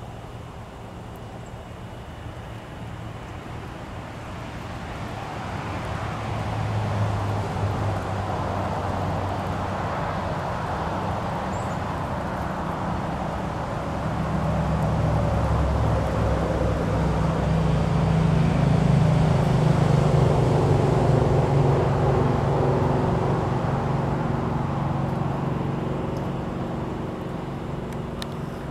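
A motor vehicle's engine running as a low hum that swells louder from about halfway through and eases off near the end.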